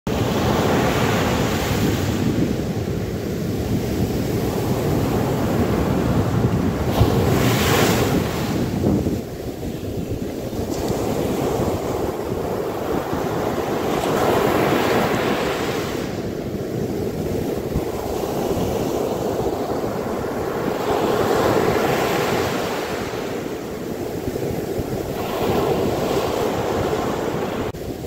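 Sea surf breaking and washing up over a sandy beach, a steady rushing hiss that swells and fades every several seconds as each wave comes in.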